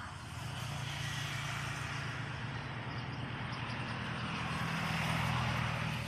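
Steady engine drone of a passing vehicle, a low hum under a broad rushing noise, growing louder over the first five seconds and easing off near the end.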